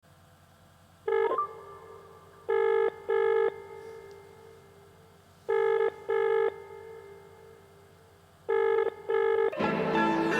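Telephone ringback tone heard by a caller waiting for an answer, in the British double-ring pattern: one short beep, then three pairs of ring pips about three seconds apart. Music starts near the end.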